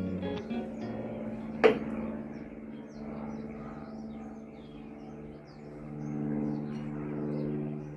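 Faint birds chirping over soft, held background music tones, with one sharp click about a second and a half in.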